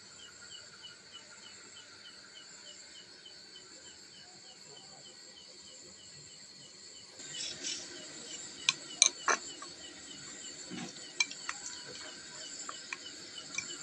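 Crickets chirping steadily, with a high trill and a regular chirp about three times a second. From about halfway, a spoon clinks and scrapes on a plate in a string of sharp clicks.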